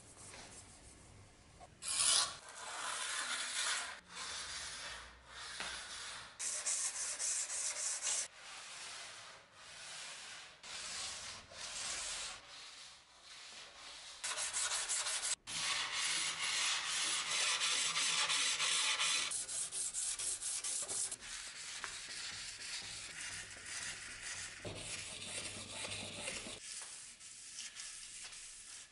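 Hand sanding or abrasive rubbing, done in back-and-forth strokes. Separate strokes come about a second apart at first, then run into a longer continuous spell, then turn fainter.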